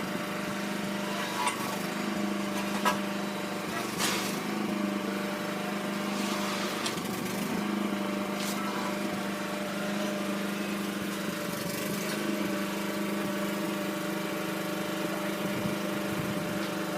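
An engine running steadily at idle, a constant low hum with a few short clicks over it.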